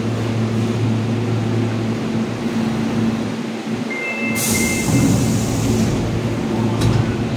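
Osaka Metro Midosuji Line train coming to a stop at the platform, with a steady low electric hum that dips as it halts. About four seconds in, a burst of air hiss and a brief two-tone electronic chime come as the doors open.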